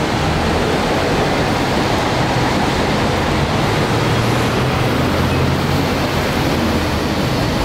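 Steady city street noise: a constant traffic roar with a low hum underneath.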